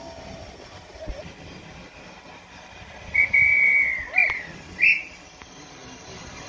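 Railway guard's whistle blown on a heritage steam train: one long shrill blast lasting about a second, then two short blasts. This is the guard's signal that the train is ready to depart.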